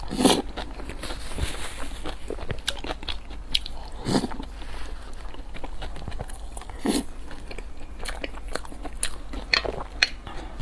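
Close-miked eating sounds: a person biting and chewing food with crisp crunching and crackling. Four louder bites come roughly every three seconds, with small clicks and smacks of chewing between them.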